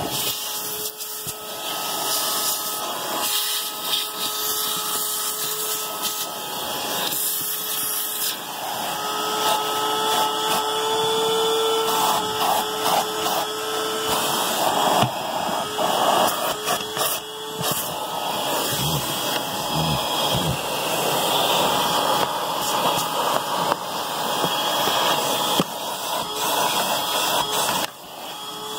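Vacuum cleaner running steadily, its crevice nozzle sucking along car carpet and seat rails under a seat; the motor's whine rises and fades as the nozzle is moved around.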